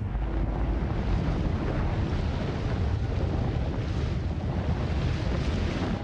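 Steady underwater rumble, strongest in the low end, with an even hiss above it and no breaks.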